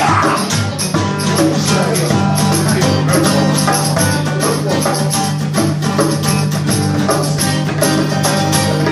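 Instrumental passage of a song: guitar and bass over steady percussion with tambourine or shaker.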